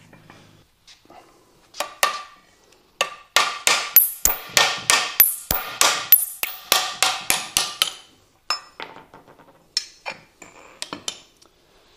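Hammer striking metal to knock a new, stiff shifter assembly free of its pins on a manual transmission. A couple of strikes come first, then a fast run of loud blows, about three or four a second, for several seconds, then lighter, scattered taps near the end.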